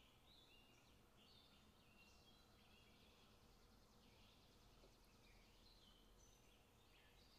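Near silence, with faint birds chirping now and then in the background.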